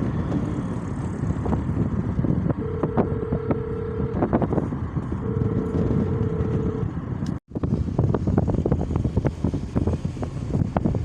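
City street traffic with wind buffeting the microphone, and a vehicle horn giving two long, steady beeps about three and five seconds in. The sound cuts out for an instant about seven seconds in.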